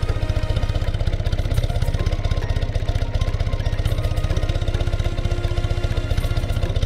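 BMW R65's 650 cc flat-twin boxer engine idling steadily, an even fast pulsing beat.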